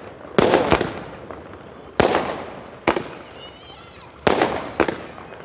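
A 60-shot sky shot (multi-shot aerial fireworks cake) firing: six sharp bangs, each trailing off quickly. They come in quick pairs and singles roughly a second apart.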